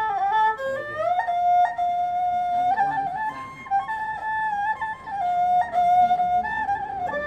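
Tro khmer, the three-stringed Khmer spike fiddle, bowed solo in a slow melody: notes slide into one another, with a long held note a little after a second in.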